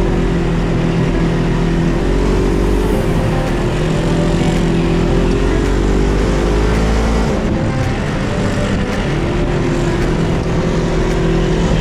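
Dune buggy engine running under load, its pitch wavering with the throttle and dropping briefly about two-thirds of the way through before picking up again.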